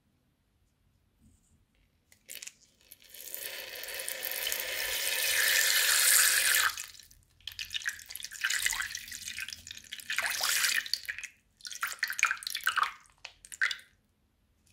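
Liquid pouring into a plastic piping bag, a steady splashing run of several seconds that builds and then stops. After it come shorter, irregular bursts of plastic-bag crinkling as the bag is handled.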